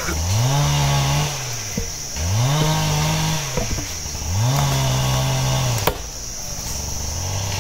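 Chainsaw engine revved up three times, about two seconds apart, each time climbing from idle, holding briefly and dropping back. A sharp knock follows near the end, over a steady high buzz of insects.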